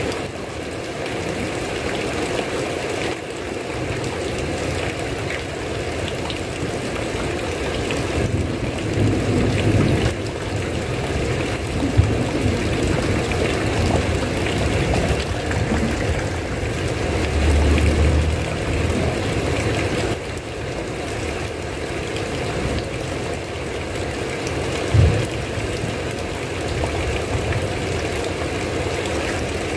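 Steady rain hiss, with a few low rumbles in the middle and a brief low thump near the end.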